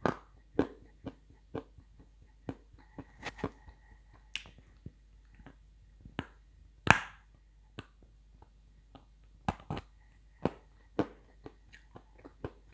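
Dry edible clay being bitten and chewed close to the microphone: a run of sharp, irregular cracks and clicks, the loudest about seven seconds in.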